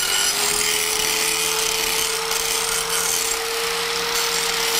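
Angle grinder with a grinding disc running at full speed, a steady whine over a loud hiss, settling at its top pitch in the first second after spinning up. It is grinding the burrs off the cut edge of a thick steel sheet.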